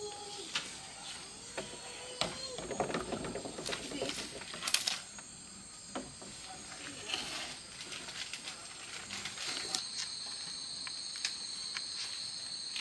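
Scattered light knocks and handling clicks with faint voices in the background; about ten seconds in, an insect starts a steady high-pitched trill.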